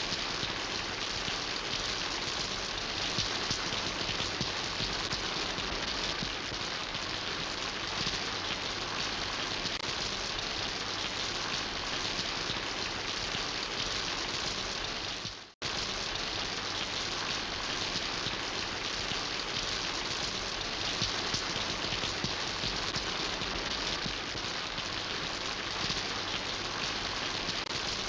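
Steady rain falling, a dense even patter of drops on surfaces. A little past halfway the sound fades down and drops out to silence for a split second, then comes back at once.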